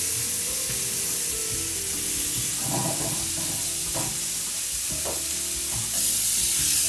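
Steaks sizzling as they sear, just flipped, in a smoking-hot ridged cast-iron grill pan: a steady sizzle with a few light knocks, louder from about six seconds in.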